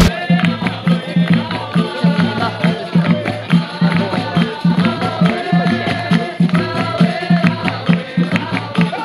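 Capoeira roda music: berimbau and atabaque drum keeping a steady pulsing rhythm, with pandeiro tambourine jingles and voices singing along.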